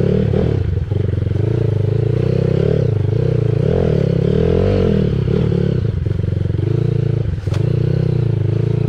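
Dirt bike engine running under load on a muddy rutted track, its pitch rising and falling as the throttle is worked. About seven and a half seconds in the engine note briefly dips, with a sharp click.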